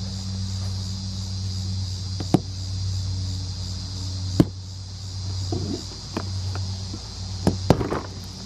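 Insects chirring steadily in a high, even drone over a low steady hum, with a few sharp knocks or clicks, two of them close together near the end.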